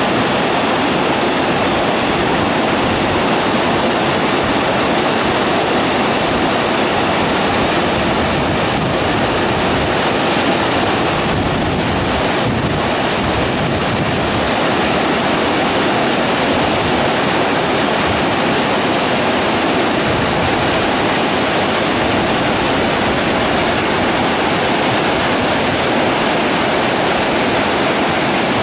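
Mountain waterfall below a lake's spillway, whitewater cascading down rock slabs in a loud, steady rush.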